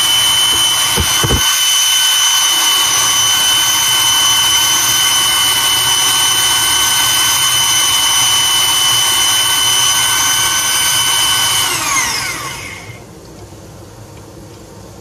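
Electric mini food chopper's motor running at a steady high whine while chopping tomatoes, then winding down with a falling pitch about 12 seconds in as it stops.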